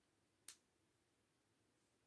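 A single short plastic click about half a second in, as small LEGO bricks are pressed together by hand; otherwise near silence.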